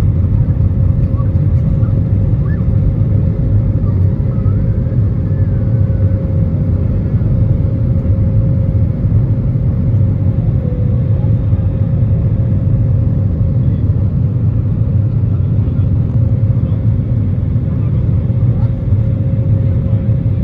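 Jet airliner's turbofan engines at takeoff power, heard from inside the cabin: a loud, steady rumble with a constant hum through the takeoff roll, liftoff and initial climb.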